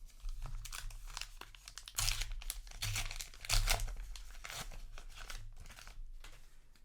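Paper booster-pack wrapper crinkling and tearing as it is handled, a dense run of irregular crackles that is loudest about two and three and a half seconds in and thins out near the end, over a low steady hum.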